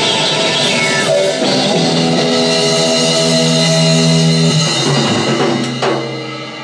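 Live blues-rock jam of electric guitar and drum kit playing a held closing chord that rings on, with a last sharp hit near the end before the sound starts dying away.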